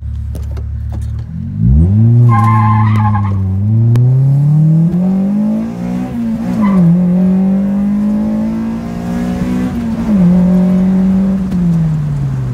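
Car engine heard from inside the cabin, launching hard with a brief tyre squeal, then accelerating through the gears: the engine pitch climbs, drops at an upshift about six seconds in and another about ten seconds in, then falls away near the end.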